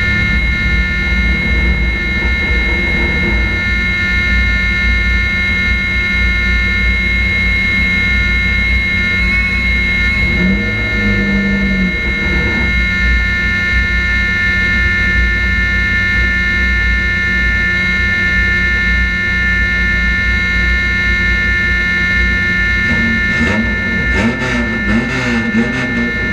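Chevrolet Cavalier street stock race car heard from inside the cockpit, its engine running at a steady pitch over a heavy low rumble with a constant whine above it. A wavering tone comes in near the end.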